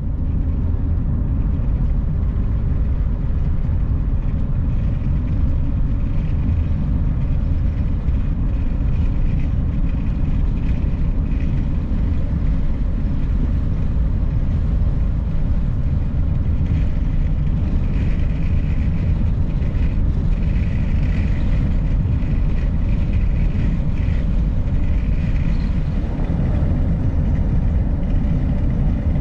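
Van driving along the road: a steady low rumble of engine, tyres and wind noise.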